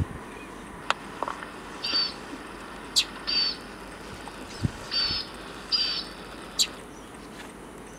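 Northern mockingbird calling: four short, raspy calls spaced roughly a second apart, mixed with three sharp single chips.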